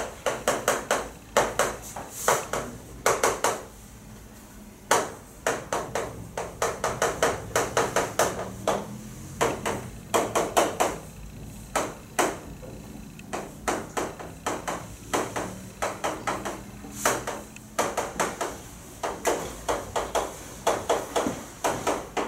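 Chalk tapping and scraping on a chalkboard as equations are written, in quick runs of sharp taps with short pauses between.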